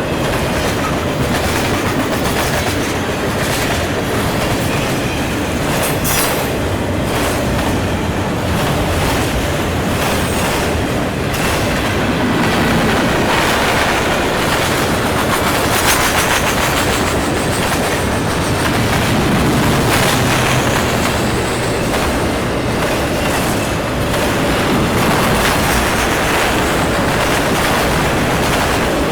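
A long mixed freight train's cars rolling past, steel wheels clacking over rail joints in an uneven run of clicks over a steady rumble.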